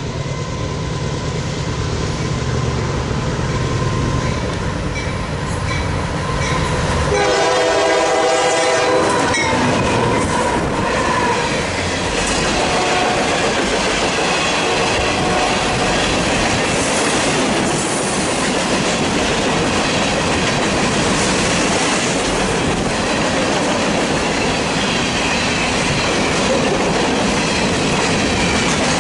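Union Pacific GE AC4400CW-type diesel locomotives passing at speed. The horn sounds a chord that is loudest just before it stops about nine seconds in. After that, the rest of the train clatters steadily past over the rail joints.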